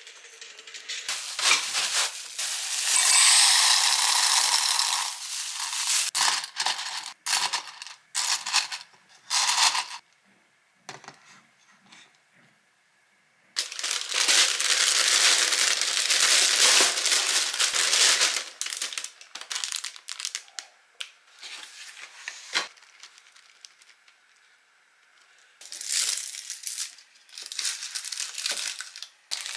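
Packaging being handled: several bursts of crinkling and rustling, like plastic wrappers and paper, with small clicks and taps in between.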